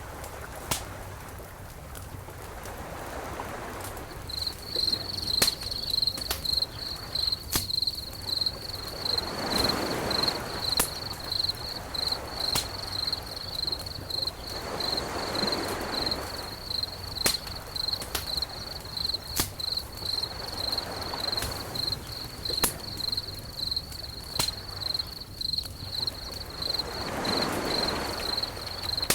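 A cricket chirps in a fast, steady, high-pitched trill that starts a few seconds in and keeps going. Under it, soft swells of surf-like rushing come and go every five or six seconds, with scattered sharp clicks.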